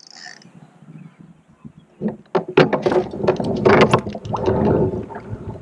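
Hooked largemouth bass splashing and thrashing at the surface beside a kayak as it is reeled in and lifted, an irregular run of loud splashes starting about two seconds in and dying down near the end.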